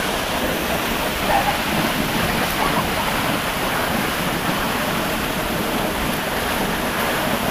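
Water gushing and spraying from a leaking drinking-water pipeline: a steady, even rush.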